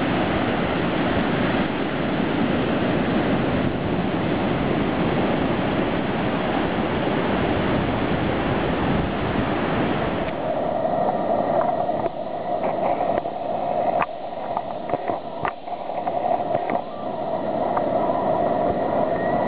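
Ocean surf washing up a sandy beach, a steady rushing wash. About halfway through it cuts off abruptly to a quieter background with a steady hum and scattered clicks.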